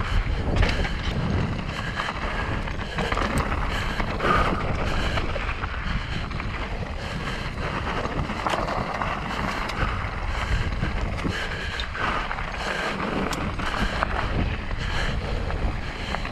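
Mountain bike descending a dirt trail: wind rushing over the microphone and tyres rolling over the ground, with many small knocks and clicks as the bike goes over bumps.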